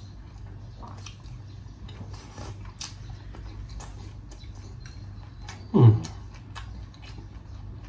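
Close-up eating sounds: scattered small clicks of chewing fried pineapple sweet and sour pork over a low steady hum. About six seconds in, one short voiced sound falls in pitch.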